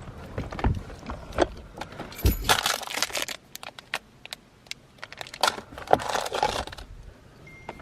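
Handling noise: scattered clicks and two spells of rustling and jangling, as of a bunch of car keys being handled.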